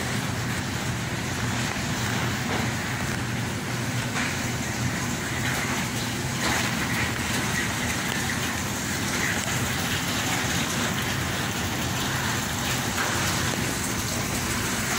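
Steady supermarket background noise: a low hum under an even hiss.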